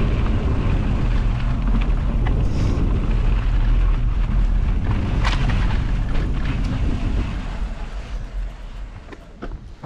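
Wind buffeting the microphone on a moving bicycle, with tyres rolling over a gravel dirt track: a heavy low rumble with a few sharp knocks from bumps. It dies down over the last few seconds.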